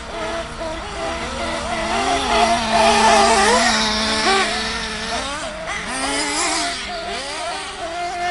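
Several RC off-road buggies racing on a dirt track, their small engines revving up and down and overlapping, loudest about three seconds in.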